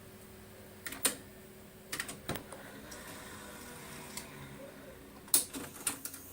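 Scattered sharp clicks and light knocks, like buttons being pressed or hard plastic being handled, about eight in all and loudest near the end, over a faint steady machine hum.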